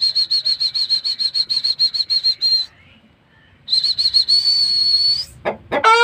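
A high whistle trills about seven times a second, breaks off for about a second in the middle, then settles into one steady note. A rooster starts calling near the end.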